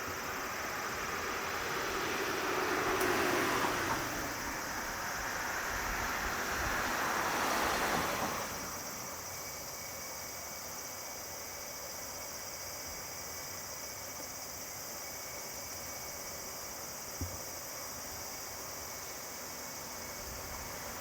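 Jet aircraft engine noise swelling and fading twice over the first eight seconds as an aircraft taxis by. After that comes a steady, quieter background with a thin high insect drone.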